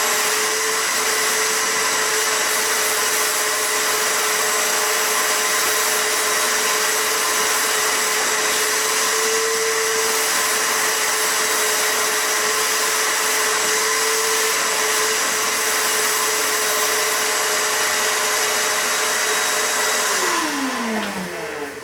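Shop vacuum running steadily as it picks up sawdust, then switched off near the end, its motor whine falling in pitch as it spins down.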